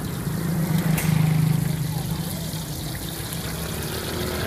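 Shrimp fritters deep-frying in a wok of oil, with a fine sizzling hiss, over a low steady rumble that swells about a second in. A single sharp click comes about a second in, and faint voices are in the background.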